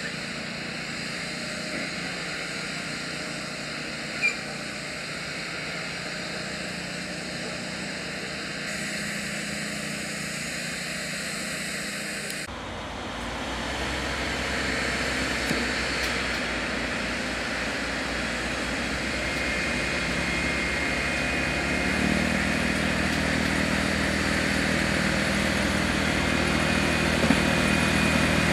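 Diesel engine of a yellow EM50 track recording car running as it moves along the line, getting gradually louder toward the end. There is an abrupt change about twelve seconds in, and a deeper steady engine note joins about twenty-two seconds in.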